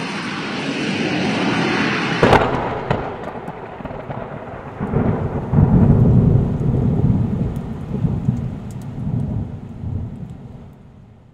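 A sudden blast about two seconds in, followed by a heavy low rumble that swells and then dies away.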